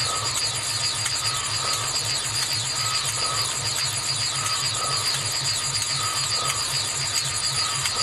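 Designed sci-fi 'alien machine' sound effect running steadily: a fast, pulsing low throb under a fast high ticking, with a higher tone that recurs about every second.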